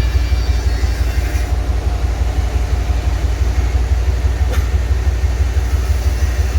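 Diesel engine of a crane truck running steadily with a fast, even low pulsing, driving the crane's hydraulics. A faint click sounds about four and a half seconds in.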